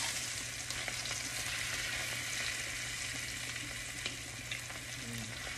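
Prime rib steak sizzling steadily as it sears in foaming butter in a frying pan. A spoon basting it with the butter makes a few light clicks against the pan.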